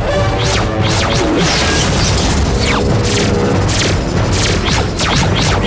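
Cartoon action soundtrack: background music with held chords under a dense layer of sound effects, with several falling whooshes and crash-like impacts throughout.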